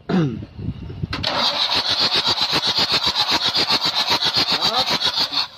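Starter cranking a mobile crane's six-cylinder common-rail diesel that has its injectors lifted out of the cylinder head, so it spins over without firing. After a short loud burst it settles about a second in into a steady, even pulsing with a high whine, then stops suddenly near the end.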